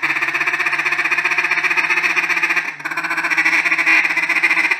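Duck call blown in a fast, nonstop mallard feed chuckle, a rapid run of tick-like notes with one brief break just under three seconds in. Rushed and unbroken like this, it is the common beginner's mistake: one call made to sound like hundreds of ducks rather than a single hen.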